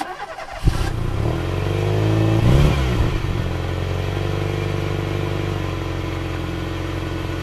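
Car engine starting: it catches with a sharp onset, flares up in revs for a couple of seconds, then settles into a steady idle.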